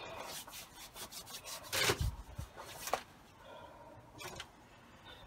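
Rubbing and scraping handling noises with scattered clicks, with a louder knock about two seconds in. They die down to faint noises after about three seconds.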